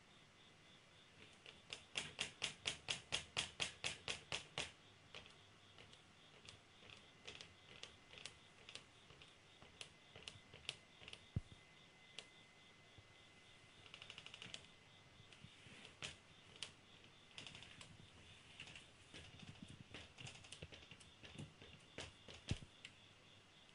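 Pencil strokes on drawing paper on an easel: a run of quick, short, evenly spaced strokes, about four a second, for a few seconds near the start, then scattered single strokes and taps.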